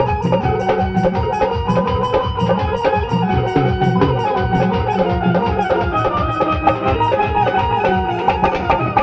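Instrumental passage of Indian devotional jagran music: a dhol and an electronic drum pad keep a fast, steady rhythm under a held melody line.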